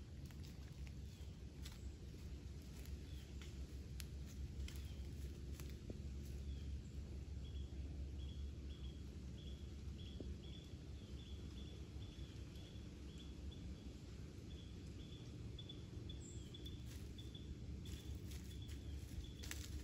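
Quiet woodland: a white-tailed deer's hooves crunching now and then in dry leaf litter, with a bird chirping short high notes about twice a second from about seven seconds in until about seventeen seconds, over a low rumble.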